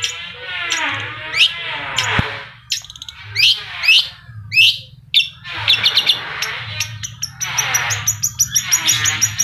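Long-tailed shrike (cendet) singing loudly: sharp falling whistles alternating with rich warbled phrases, then rapid high ticking notes near the end. A steady low machine hum runs underneath.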